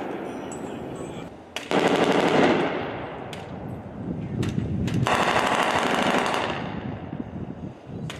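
Machine gun firing in bursts of rapid automatic fire. One burst tails off about a second in, another starts just under two seconds in, and a longer one runs from about five seconds in until near the end, with a few single shots in between.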